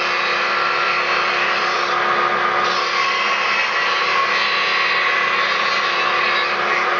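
Chainsaw bar rail-grinding machine running steadily, its stone grinding the welded rail of a guide bar square; a continuous hissing grind over a steady motor hum.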